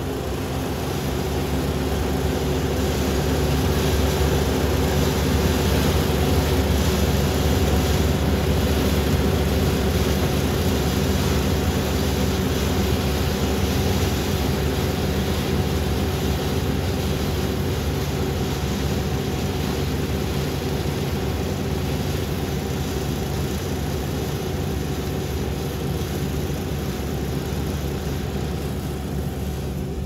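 Kubota combine harvester's diesel engine running steadily under load as it harvests, crawling on its tracks through a muddy rice paddy. It is loudest a few seconds in and fades slowly as the machine pulls away.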